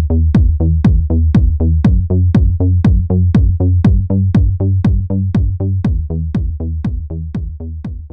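Electronic music with a steady kick-drum beat, about four beats a second, over a held bass note, fading out near the end.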